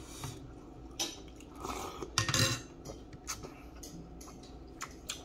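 Metal spoon clinking and scraping against a bowl and plate in a series of short, scattered clicks, with a few brief rustling bursts.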